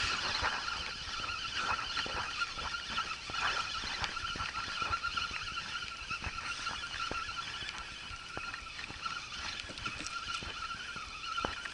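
Spinning reel cranked steadily to retrieve the line, a continuous whirring of the reel's gears with faint ticks running through it.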